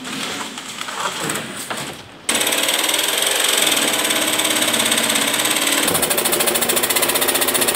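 Corded jigsaw cutting a sheet of sheet metal: after about two seconds of quieter handling noise, the saw starts abruptly and runs loud and steady with a fast, rattling buzz.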